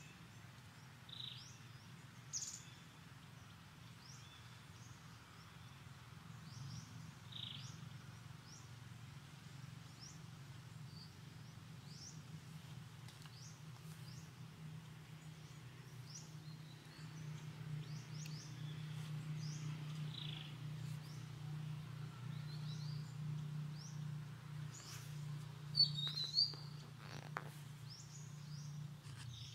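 Small birds chirping in scattered short, high calls, with one louder call near the end. Underneath runs a low steady hum that grows louder after the middle.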